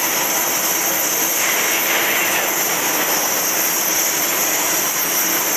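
CNC oxy-fuel cutting torch burning through 10 mm St3 steel plate: a steady, loud hissing roar from the cutting-oxygen jet, unchanging throughout.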